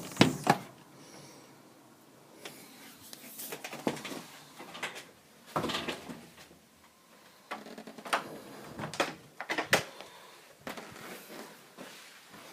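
Irregular knocks, thuds and short scrapes, a dozen or so at uneven intervals and loudest at the very start, which the recorder takes for someone digging beside the house.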